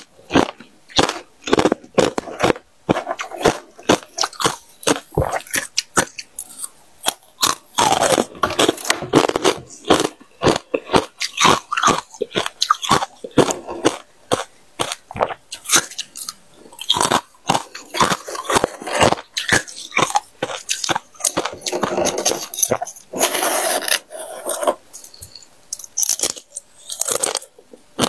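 A person biting and chewing freezer frost: crisp crunches, several a second, coming in uneven runs with a few longer grinding stretches.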